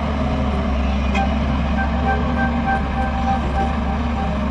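Heavy diesel construction machinery, such as an excavator at road works, running steadily with a deep engine drone. Short, faint beeping tones come and go over it.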